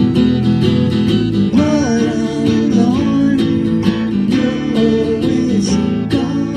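A band playing, led by strummed acoustic guitar, with a melody line that slides between notes about two seconds in.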